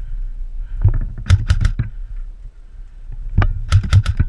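Airsoft gun shots: a quick string of three sharp shots about a second and a half in, then a second string of four or five shots near the end.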